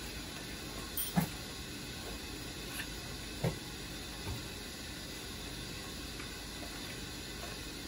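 Steady hiss of background noise, with a few short, soft rustles and taps as a foil-faced insulation cover is handled and pressed around a pipe coupling.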